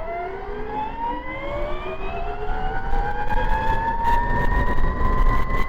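Motor of a 72-volt electric dirt bike, converted from an X Pro 4000, whining under full acceleration. The whine rises steadily in pitch and levels off near the end, growing louder, with a low rumble building underneath.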